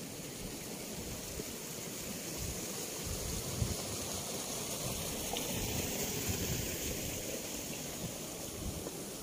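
Wind gusting over open rice fields and buffeting the microphone in irregular low rumbles, over a steady high hiss.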